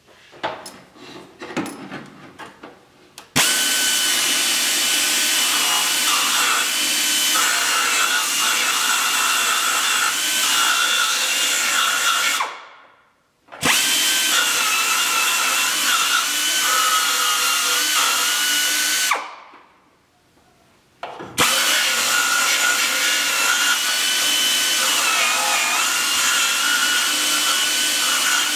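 Pneumatic finger belt sander grinding the steel inner sill flange of a car body. After a few light clicks and taps, it starts about three seconds in with a steady high whine over a rough grinding hiss. It cuts out and spins down twice and starts again each time, its pitch dipping slightly as it is pressed into the metal.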